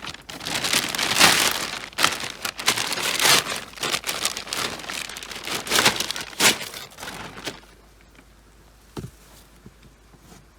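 Crinkling, rustling handling noise with many small clicks, which stops about seven and a half seconds in; one sharp click follows near the end.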